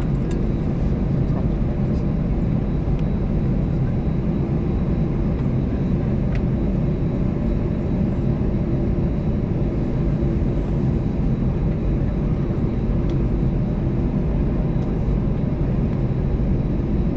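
Steady cabin drone inside an Airbus A320-214 with its CFM56-5B engines idling on the ground, a low, even rumble with faint steady tones over it.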